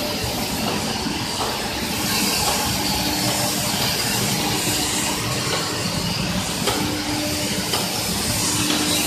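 Copper rod production line machinery running: a steady mechanical hum from drive motors and gearboxes under a continuous hiss, with a faint tone that comes and goes.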